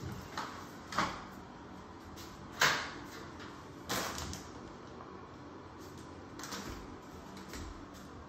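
A few separate knocks and clunks of cleaning gear being handled, with a plastic bucket of water picked up by its wire handle; the loudest knock comes about two and a half seconds in.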